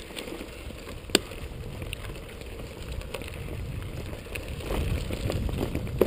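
Bicycle rolling along a paved road: a steady rumble of tyre and wind noise on a handlebar-mounted camera, growing a little louder in the second half. A sharp click about a second in and another near the end.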